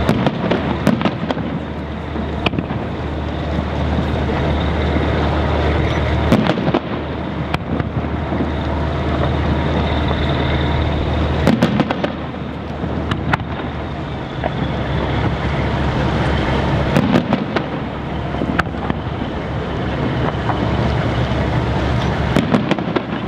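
Aerial firework shells bursting in a display: a string of sharp booms every one to four seconds over a steady low rumble.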